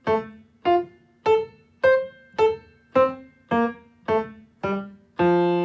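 Piano playing a simple melody in the key of F as short, detached staccato notes, about two a second. Near the end a longer note is held.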